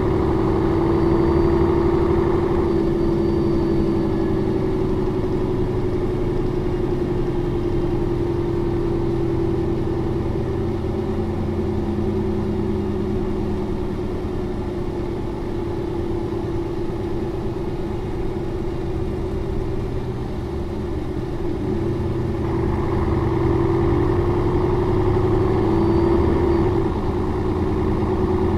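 Mercedes-Benz O405N2 city bus's diesel engine running steadily, its pitch sinking slightly for most of the stretch, then rising over several seconds near the end as the revs pick up.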